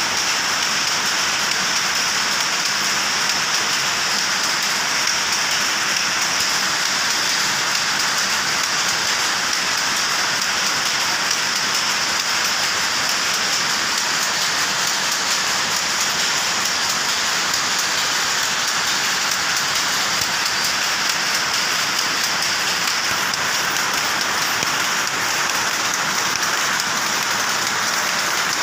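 Dense, steady clatter of many powerlooms running together in a weaving shed, loud and unbroken.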